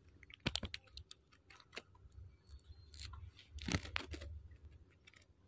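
Close-up handling noise from unhooking a small caught fish by hand: a string of clicks, crinkles and rustles, loudest about half a second in and again about three and a half seconds in.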